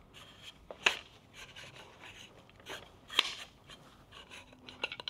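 Hand handling of a motorcycle front fork's top cap and cartridge parts: two sharp clicks about two seconds apart, with light scraping and rubbing between them.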